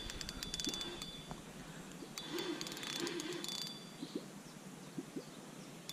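Spinning fishing reel clicking faintly in two runs, the first in the opening second and the second a couple of seconds in, as a hooked carp is played on the line.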